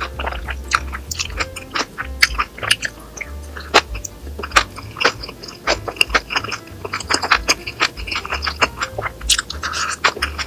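Close-up chewing and crunching of food being eaten, a quick irregular run of sharp mouth clicks and crackles, over background music.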